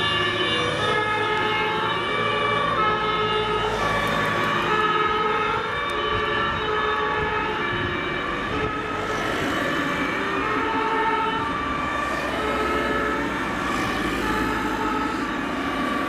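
Two-tone sirens of several German fire engines sounding together out of step, each alternating between a high and a low note, over the running of the trucks' engines.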